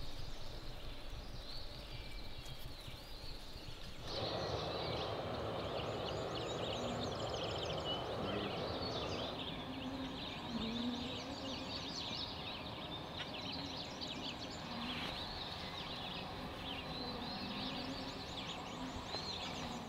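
Birds singing a dawn chorus, many short chirps and trills, over the steady hiss of flowing river water. The water sound grows louder about four seconds in and eases again after about nine and a half seconds.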